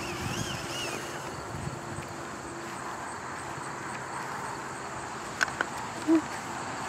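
Steady outdoor background noise, with a short warbling high chirp in the first second, two light clicks about five and a half seconds in, and a brief low voiced sound just after.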